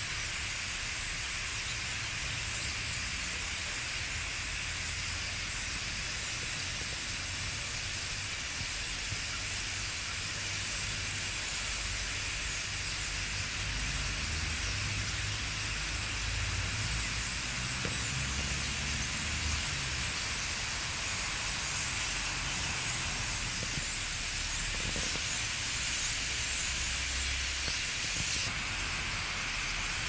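A huge flock of starlings in and over tall trees, thousands of birds chattering at once so that their calls blend into a steady, dense hiss. A low rumble runs underneath.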